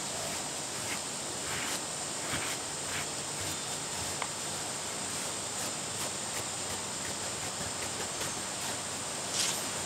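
Kong rubber grooming brush stroking over a dog's short coat: a few soft, short brushing strokes, the clearest near the end, over a steady high-pitched hiss.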